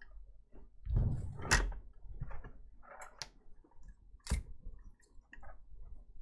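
Bench handling sounds as a board holder with a phone logic board is set in place under a microscope: a soft bump about a second in, then several sharp clicks and knocks over the next few seconds.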